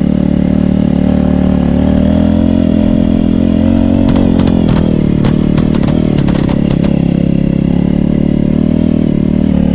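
Royal Enfield Meteor 350's single-cylinder engine running steadily under way, its pitch rising a little about two seconds in. A scatter of sharp clicks comes in the middle.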